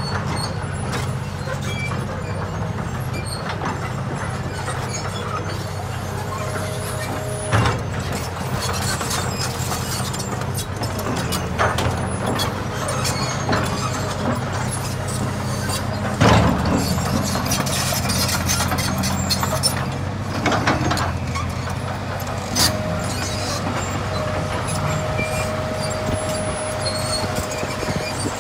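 Caterpillar 235 hydraulic excavator's diesel engine running steadily while the boom and bucket are worked. A thin whine comes in briefly around six seconds and again from about twenty-four seconds, and a few sharp clanks from the arm and bucket break through, the loudest about sixteen seconds in.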